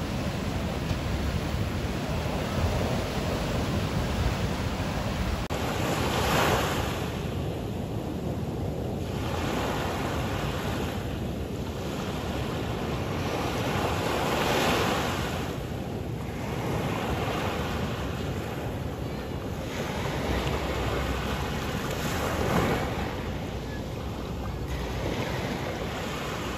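Ocean surf: a steady rush at first, then waves washing up onto the sand in surges every few seconds.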